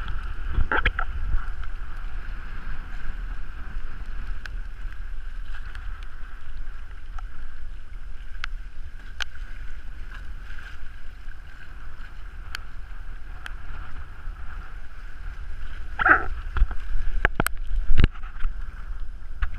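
Water rushing along the hull of a Hobie Tandem Island sailing trimaran in choppy water, with wind buffeting the microphone as a steady low rumble. Scattered sharp knocks break through, the loudest near the end.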